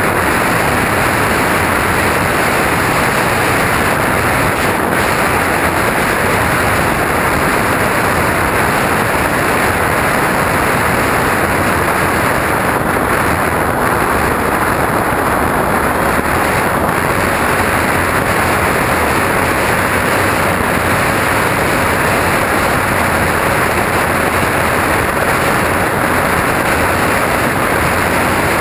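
Loud, steady rush of airflow on the microphone of a camera carried by a radio-controlled plane in flight, mixed with the plane's motor and propeller. A faint steady whine comes in about halfway through.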